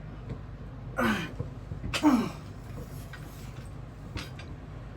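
A man coughs twice, about a second apart, each cough a short burst with a falling voiced tail.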